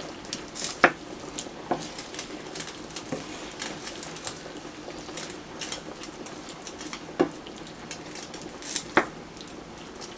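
A cooking utensil stirring and breaking up canned sardines in a pot of simmering sardine gravy, with a steady light sizzle and a handful of sharper knocks of the utensil against the pot.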